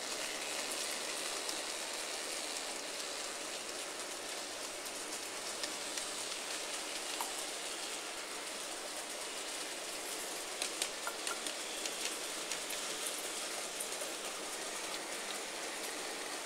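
N gauge model trains running on the layout's track: a steady, hiss-like rattle of small wheels and motors, with scattered clicks and a short cluster of them a little after the middle.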